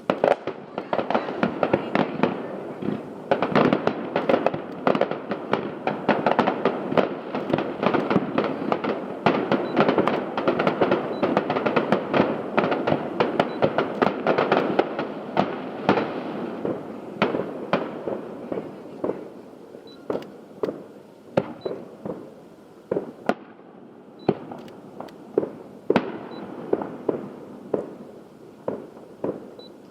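Aerial fireworks going off: a rapid barrage of booms and crackling for about the first half, thinning to single shell bursts every second or two with a few faint whistles.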